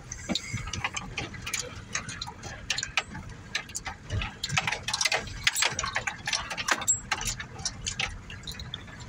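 Truck cab rattling and clicking irregularly as it drives over a rough dirt track, with a steady low engine rumble underneath.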